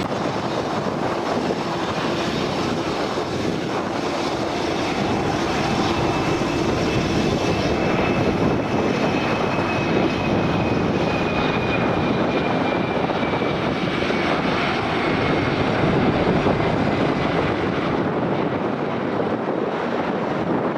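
Aircraft engines running as a plane passes: a loud, steady rush with a faint high whine that slowly falls in pitch partway through.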